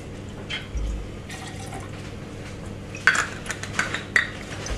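A small measure of reposado tequila poured from a glass bottle into a metal bar jigger, a brief trickle, with a low thump about a second in. Sharp clicks and knocks of the bottle and bar tools being handled follow about three to four seconds in.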